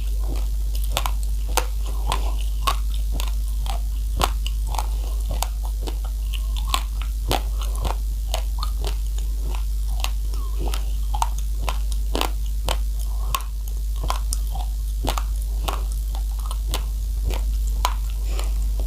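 A person chewing a mouthful of raw, uncooked rice, the hard grains cracking in quick, irregular crunches, several a second, over a steady low hum.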